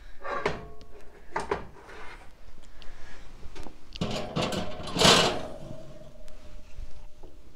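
Metal oven rack clattering and sliding as a glass baking dish is set on it, a few knocks early on building to a louder metallic clank about five seconds in that rings on briefly.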